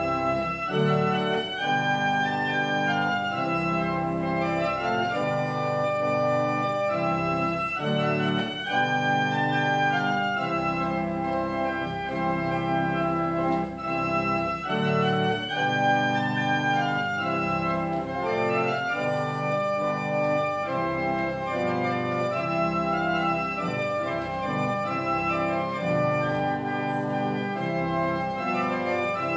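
Organ music: full sustained chords that change every second or two.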